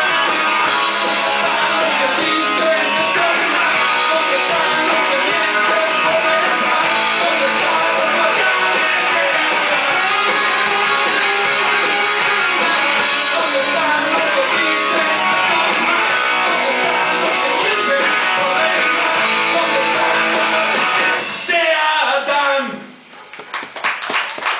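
Rock music with strummed guitars, steady and loud, breaking off about three seconds before the end.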